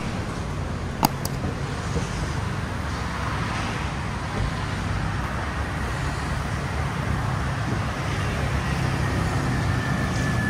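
Street traffic: cars running past in a steady rumble and hiss, with a single sharp click about a second in.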